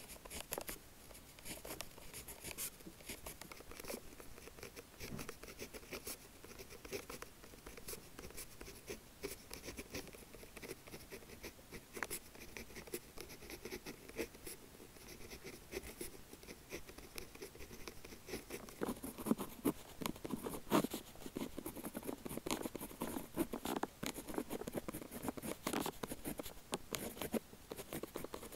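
A pen with a 0.5 mm bullet tip writing on paper: a continuous run of small scratching strokes. The strokes grow louder and fuller about two-thirds of the way through.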